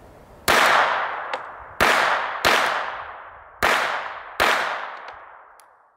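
Five shots from a Beretta Model 20 .25 ACP pistol at an uneven pace. Each is a sharp crack followed by a long fading echo.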